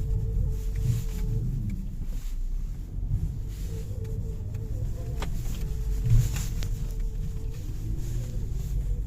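Car driveline running with a low rumble and a steady hum that fades in and out, the noise of a worn driveshaft center support bearing. A short knock about six seconds in.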